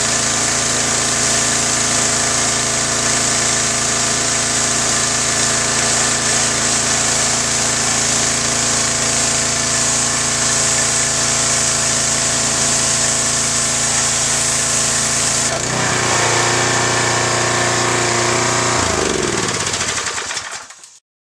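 Troy-Bilt 2700 PSI gas pressure washer running, its high-pressure water jet hissing against concrete. About fifteen seconds in the spray stops and the engine runs on alone, then its pitch falls and it dies away near the end.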